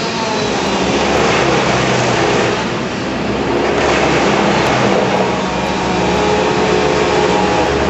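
A heavy engine running loudly and steadily under a broad rushing noise, easing off briefly about three seconds in.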